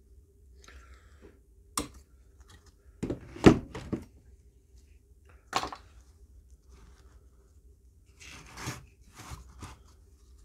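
Battery protection circuit board being pulled off a Milwaukee M18 battery's plastic housing after desoldering, then set down and the housing handled: a sharp click, a louder clatter of knocks about three and a half seconds in, another click, and softer scraping near the end, over a faint steady hum.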